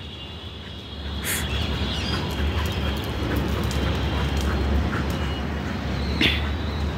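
A low steady rumble that swells about a second in, with a few brief bird chirps over it.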